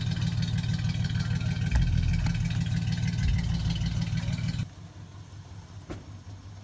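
Chevrolet Silverado pickup's engine idling close by with a steady low exhaust rumble. A little over four seconds in it drops suddenly to a much quieter, more distant idle.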